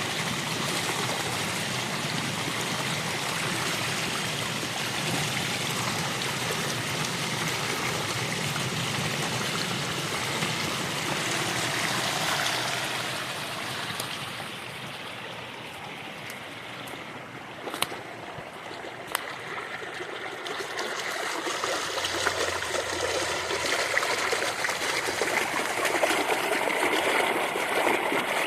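A creek running and babbling over rocks. It grows softer and duller for several seconds in the middle, with two sharp clicks about two-thirds through, then builds back up near the end.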